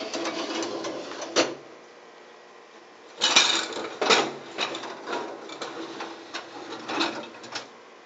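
Wire dish racks of a 1959 KitchenAid KD-12 dishwasher rolled in on their rails, the loaded dishes and glasses rattling, in several bouts of clatter with sharp knocks as the racks stop.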